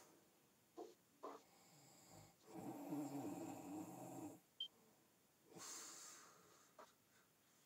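Faint marker pen drawn across a whiteboard in one long stroke lasting about two seconds, with two light clicks a little before it and a shorter scrape about two seconds after.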